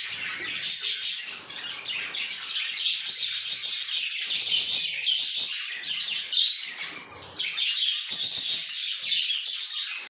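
A flock of budgerigars chirping and warbling together, a dense, continuous chatter of many overlapping high calls.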